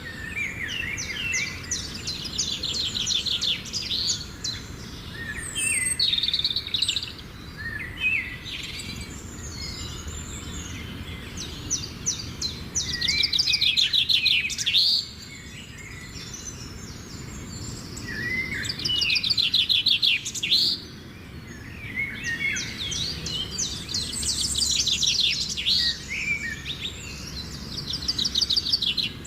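Songbird singing in repeated bouts of rapid trilled phrases, each a few seconds long, with short gaps between them, over a steady low background noise.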